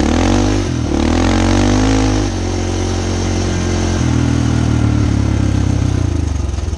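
Honda TRX400EX quad's single-cylinder four-stroke engine running under way at speed. The revs dip and rise over the first two seconds, then hold steady.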